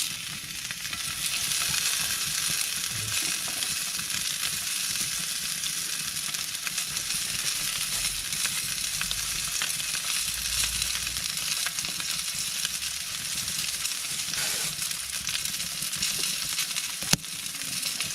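Steak sizzling steadily as it cooks over a wood fire, a continuous frying hiss, with one sharp click near the end.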